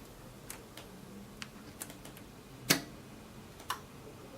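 Several sharp, separate clicks from buttons being pressed on a Lelit PL62T espresso machine's PID control panel. One click, about two and a half seconds in, is much louder than the rest.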